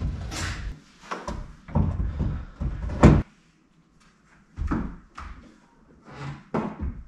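Irregular knocks and clunks of parts being handled and fitted inside a Jeep Wrangler's cab. The sharpest comes about three seconds in, followed by a pause of about a second.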